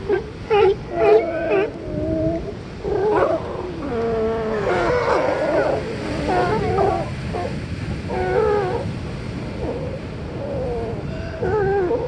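Several sea lions barking and calling, their calls overlapping one another, over a steady wash of ocean surf.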